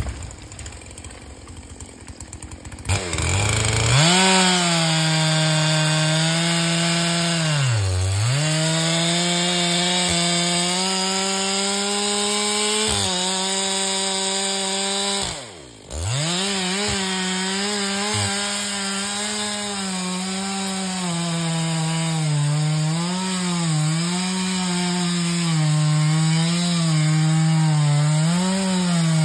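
Two-stroke chainsaw running at full throttle as it cuts into the base of a standing ash tree, coming in about three seconds in. Its pitch dips sharply near eight seconds and again around sixteen seconds, and it wavers up and down near the end as the chain bites into the wood.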